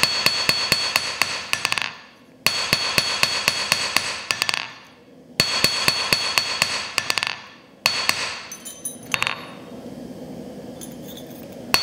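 Small ball-peen hammer tapping quickly and lightly on a cold, annealed steel knife blank against an anvil, straightening out a bend left by shearing. The taps come in about four rapid runs of a couple of seconds each with short pauses between them, each tap ringing bright and metallic, and go quieter over the last few seconds.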